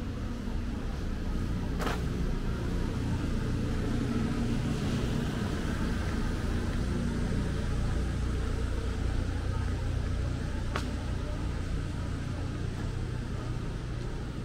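Steady low rumble of city street traffic, with two short sharp clicks, one about two seconds in and one about three-quarters of the way through.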